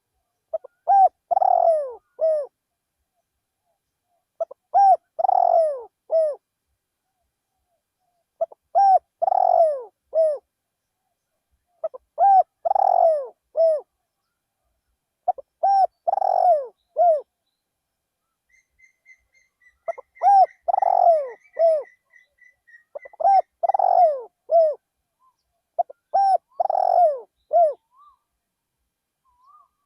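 Spotted dove cooing: a phrase of three or four coos, repeated about every three to four seconds, eight times. Faint rapid high chirps from another bird come in midway.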